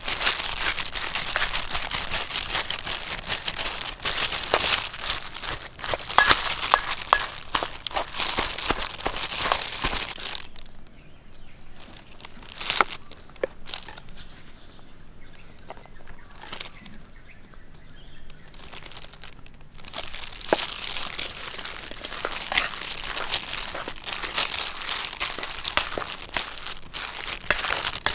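Plastic-gloved hand mashing boiled potato and shredded chicken with a metal spoon in a stainless steel bowl: continuous crinkling of the plastic glove with soft squashing and spoon scrapes. It goes much quieter for about ten seconds midway, with only a few clicks, then the mashing resumes.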